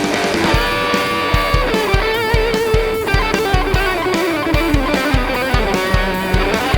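Overdriven electric guitar, a 1994 Hamer Chaparral through a Marshall JCM800 amp, playing a melodic lead with string bends and vibrato. A backing track with a steady kick drum plays under it.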